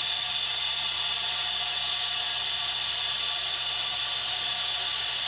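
Milling machine spindle running an 8 mm chamfer mill through 2017 aluminium alloy, chamfering the edge of a gearbox casing. The cutting sound is steady, with a high tone held throughout.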